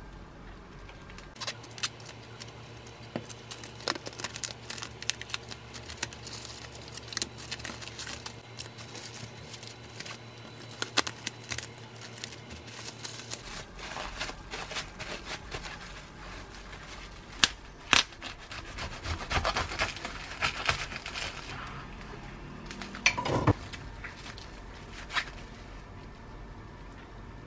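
Plastic cling film crinkling and crackling as it is pulled and pressed tightly around a bagel sandwich. Near the end come a few louder knocks, a knife cutting through the wrapped sandwich onto a wooden cutting board.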